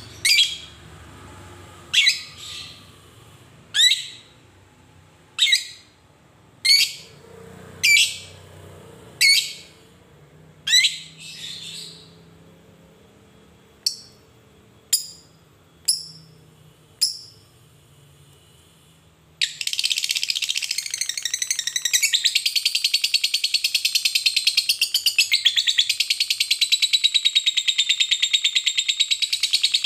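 Lovebird calling: a series of single sharp, high chirps about every second and a half, then about two-thirds of the way in it breaks into a long, unbroken rapid chattering trill, the 'ngekek' song of a fighter lovebird.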